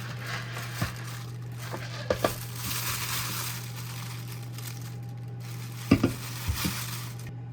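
Food sizzling in a pan, with a few sharp knocks of a utensil against it, the loudest about six seconds in. The sizzling cuts off suddenly near the end.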